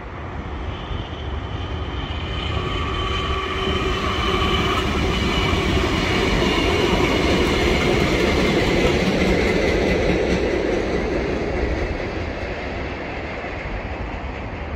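Vintage Tait electric suburban train passing on the far track: its rumble swells to its loudest about seven to ten seconds in and then fades away, with high whining tones above it.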